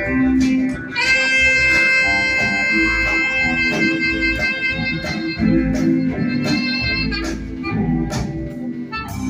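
Live band playing an instrumental passage of a blues-rock song: guitar, bass and drums, with one long held high note from a lead instrument from about a second in until about seven seconds in.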